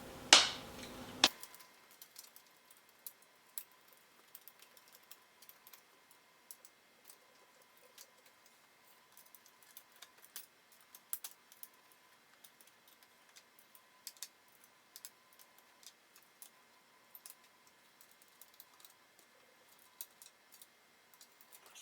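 Bolts being tightened by hand with an Allen key on a flat-pack wooden end table: scattered light metal clicks and taps at an uneven pace, with two sharper knocks at the start.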